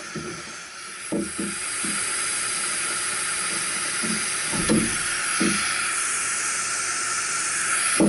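Brazing torch flame hissing steadily while the copper fittings of a condenser coil are unbrazed. The hiss grows a little louder about a second and a half in.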